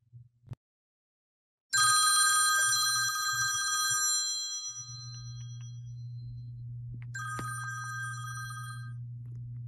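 A smartphone alarm tone rings out from a phone lying on a bed. A bright, multi-note chime starts suddenly about two seconds in and fades away over a few seconds. It sounds again near the end and stops after about two seconds as a cat paws at the phone's screen. A low steady hum runs underneath.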